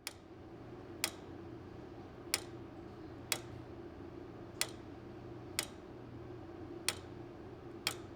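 Mechanical tower-clock movement by J. Smith and Sons of Derby, from 1913, ticking: eight sharp ticks at about one a second, in a slightly uneven tick-tock beat, over a steady low hum.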